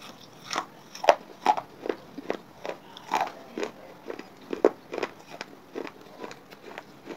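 Close-up crunching and chewing of wet baked-clay chips, pieces of terracotta pot, with a sharp crunch about every half second as the bits are ground between the teeth.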